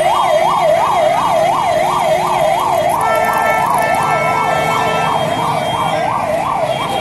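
Loud electronic vehicle siren in a fast warble, its pitch rising and falling about three times a second. A second steady tone, like a horn, sounds over it for a couple of seconds near the middle.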